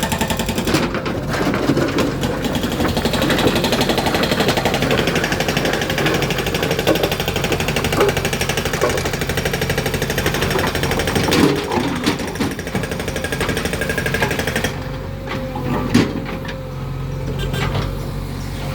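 JCB 3DX backhoe loader's diesel engine running hard with a fast chugging rhythm, with a few sharp knocks from the stones being loaded. Near the end the engine eases to a quieter, steadier run.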